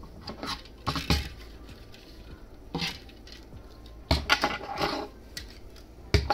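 Hard plastic parts of a Super Minipla Live Boxer model kit clicking and knocking as they are pulled out, folded and snapped into place. The sound comes in several short bursts, the densest run about four seconds in.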